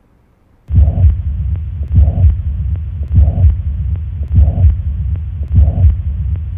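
Recorded heart sounds of mitral regurgitation starting about a second in: a slow, regular heartbeat, just under one beat a second, with a continuous blowing murmur filling the gap between the heart sounds, the pansystolic murmur of mitral regurgitation.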